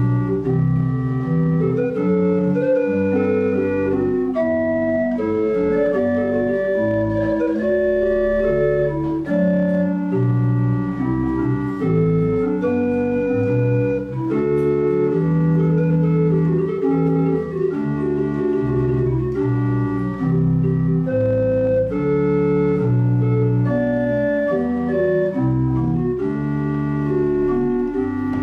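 Church pipe organ playing sustained chords over low bass notes that change every second or so.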